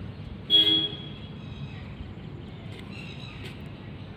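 A short, loud horn-like toot about half a second in, over a low steady background.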